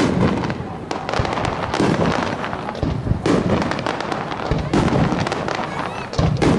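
Aerial fireworks: a rapid run of shell bursts and bangs, with heavier volleys about every second or two.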